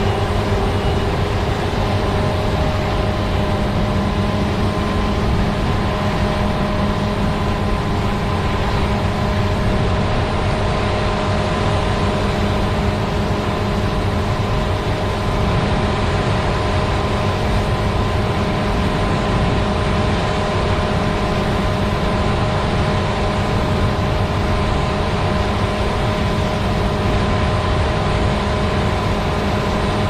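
CLAAS Lexion 750 combine harvester running under load while harvesting soybeans and unloading grain through its auger. It makes a steady, unbroken machine drone with a few constant pitched tones.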